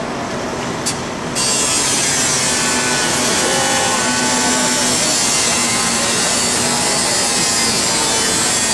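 Metal being cut through a steel sign panel: a loud, steady hissing, grinding noise that thins out briefly and comes back in full just over a second in.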